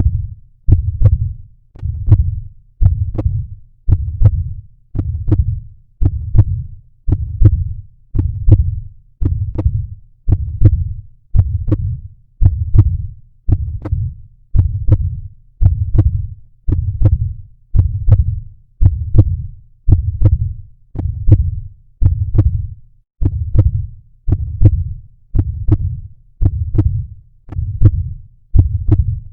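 Heartbeat sound effect: a steady, even run of low thudding beats, about one a second.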